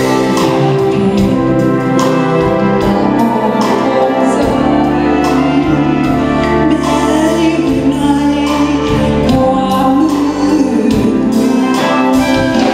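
A woman singing a song with band accompaniment over a steady beat.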